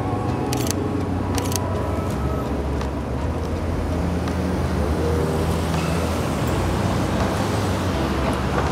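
City street traffic: vehicles passing on the road with a steady low engine rumble that swells from a few seconds in as a heavier vehicle goes by. Two short high clicks sound about a second in.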